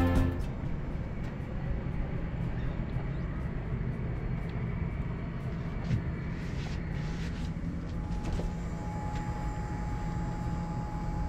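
Albin 28TE's inboard diesel engine running slowly at low speed, a steady low hum.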